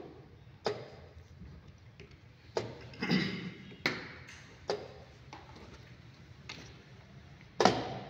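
Plastic chess pieces being set down on the board and a digital chess clock's buttons being pressed in quick turns: a string of about nine sharp taps and clacks, with the loudest near the end.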